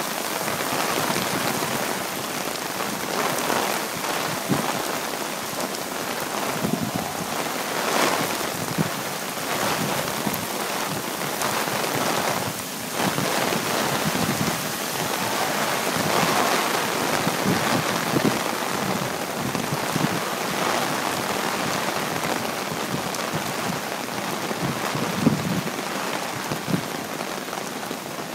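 Heavy hurricane rain pouring onto the street and pavement, a dense, hissing downpour that swells and eases in waves.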